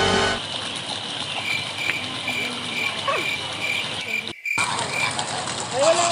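Background music cuts off about half a second in. After it, a small animal's short high chirp repeats about twice a second over a steady background hiss.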